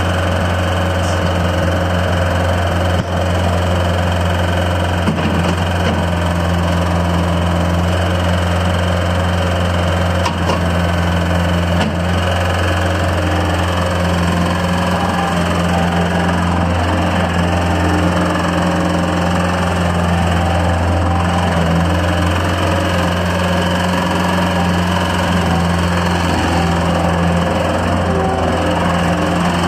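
Bobcat 751 skid steer loader's 38 HP Kubota diesel engine running steadily at an even speed, which the seller lists as having a tap.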